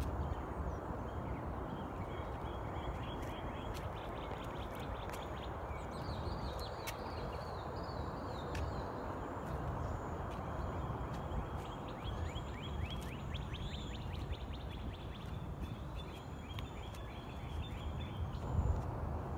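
Small songbirds singing in quick, repeated chirping trills over a steady low background rumble.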